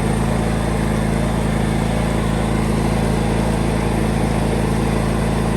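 An engine running steadily at a constant speed, a loud even hum with no change in pitch.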